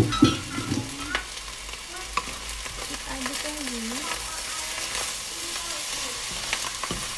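Fried rice sizzling in a coated wok while a wooden spatula stirs and tosses it, with a few sharp knocks of the spatula against the pan at the very start and scattered scrapes and clicks after.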